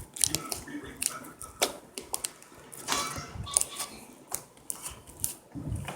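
Slime being squeezed and poked by hand, giving irregular sharp clicks and pops with a brief crackly stretch about halfway through.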